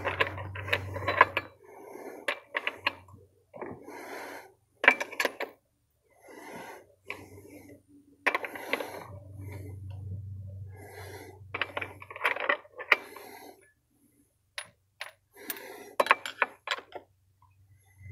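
Scattered metal clicks and clinks of a scrench on the bar nuts and chain tensioner of a Stihl MS 661 chainsaw, as the nuts are loosened and the chain is tightened a little.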